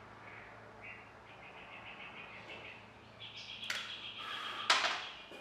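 Birds chirping in short, repeated high trills over a steady low hum. Near the end come two sharp knocks, the second the louder, as something is set down on the plastic kayak.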